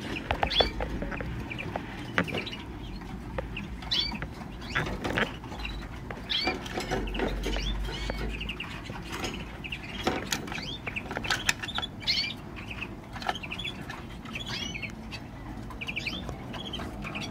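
Small caged finch chirping in short repeated calls, mixed with wing flutters and light clicks of movement in the cage.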